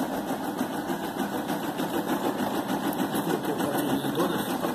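Brother PE460 embroidery machine stitching a design, running in a rapid, even rhythm.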